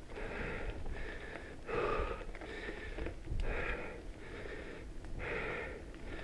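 Mountain biker's heavy, rhythmic breathing, about one hard breath a second, over a steady low rumble of wind and tyres on the trail.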